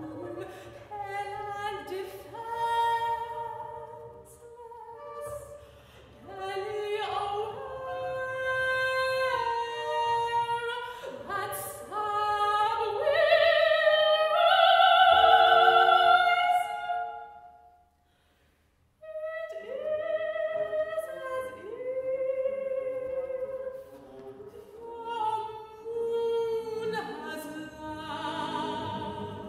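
A soprano sings a slow, wide-ranging operatic line with sliding pitches, swelling to its loudest a little past the middle, breaking off for about a second, then resuming more softly. A bowed double bass sounds faintly and low underneath as improvised accompaniment.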